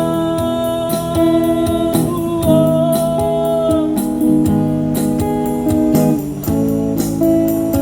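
A live band playing an instrumental passage of a song: held chords over a steady beat, with no singing.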